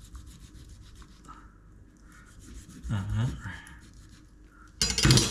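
Kitchen knife sawing through the skin of a sea perch fillet on a wooden cutting board, a rapid run of rasping strokes that stops about a second in. A short vocal sound follows about three seconds in, and a brief loud sound near the end.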